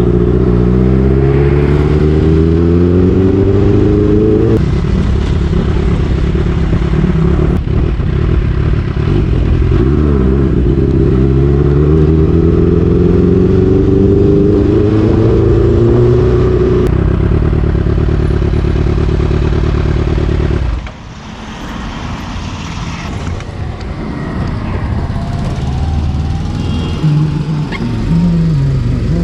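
Kawasaki H2's supercharged inline-four, breathing through an SC Project exhaust, pulling hard under acceleration. Its pitch rises twice as it winds up, holding steady at high revs in between. About 21 seconds in the throttle closes and it falls to a quieter, lower run.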